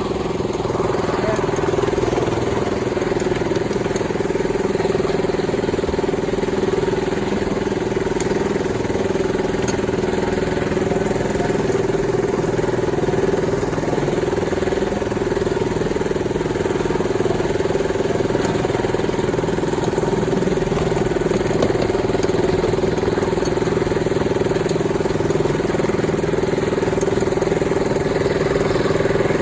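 Miniature railway locomotive's engine running steadily at an even pitch, with a constant hum, while it pulls the train along.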